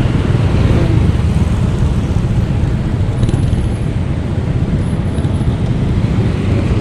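Steady low rumble of road and traffic noise heard from a moving motorcycle.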